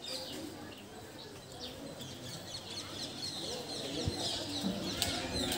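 Small birds chirping, many quick high chirps that grow busier toward the end, over a faint murmur of voices.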